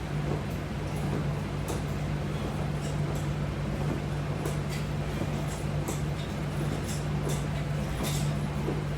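Steady low background hum under a hiss, with scattered faint clicks and ticks throughout.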